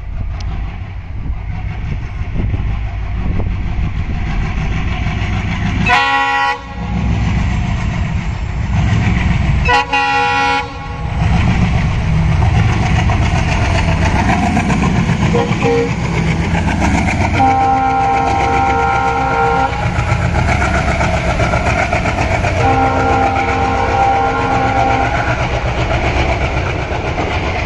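ALCO WDM-3 diesel locomotive running with a steady low engine rumble under its train, sounding its horn four times: two short blasts about four seconds apart, then two longer blasts of about two seconds each.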